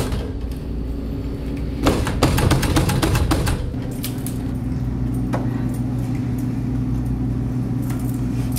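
Quick footsteps and knocks on a hard hallway floor about two seconds in, with a single knock near the middle, over a steady low hum.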